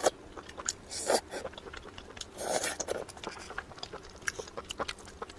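A person chewing and biting food close to the microphone: scattered small clicks and crunches, with two brief louder mouth sounds, one about a second in and one about halfway through.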